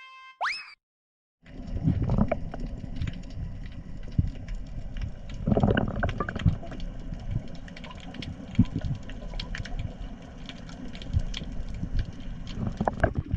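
A short rising sweep and a second of silence, then a wood campfire crackling with many sharp pops and snaps over a steady low rumble.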